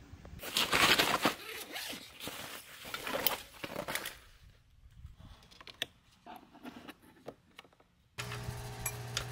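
Handling noises from setting up a portable tire compressor and its battery clamps: rustling and crinkling with many sharp clicks for the first few seconds, then scattered clicks in a quieter stretch. A steady low hum comes in near the end.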